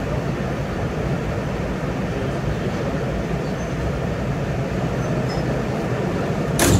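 Staten Island Railway R211S subway car running between stations, heard from inside: a steady rumble of wheels on rail and running gear. One sharp knock comes near the end.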